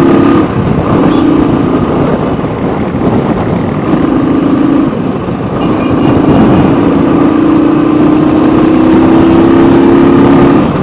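Motorcycle engine running while riding on a road, with heavy wind and road noise on the onboard microphone. The engine note fades a few times early on and holds steady, rising slowly in pitch over the second half.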